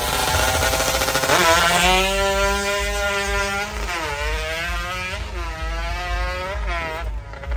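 Two-stroke drag motorcycle engine revved hard while standing: the pitch climbs about a second and a half in and is held high, then drops and is blipped up and down several times.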